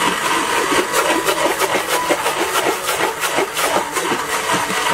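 Electric blender running, churning soursop pulp into juice with a loud, uneven whirring rattle.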